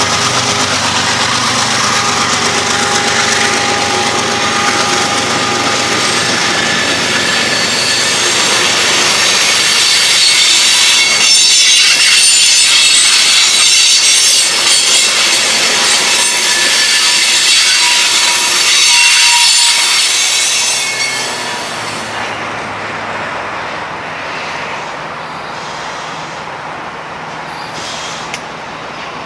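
Freight train passing close by: the trailing locomotive goes by, then loaded cars roll past with loud rumbling and clatter, and the wheels give off steady high-pitched squealing tones. About 22 seconds in it turns quieter, with the train now distant.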